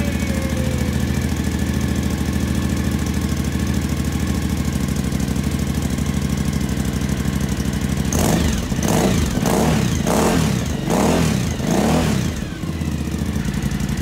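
Suzuki V-Strom DL1000's 996 cc V-twin idling steadily, then revved in about five quick throttle blips from about eight seconds in before settling back to idle. The bike has just been started after a valve adjustment and reassembly.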